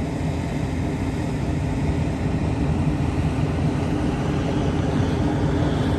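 Diesel engine of heavy construction machinery running steadily: a low, even drone.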